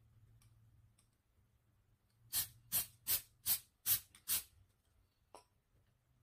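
Aerosol can of Kwik Grip spray-on contact adhesive giving six short spray bursts in quick succession, about two and a half a second, starting about two seconds in.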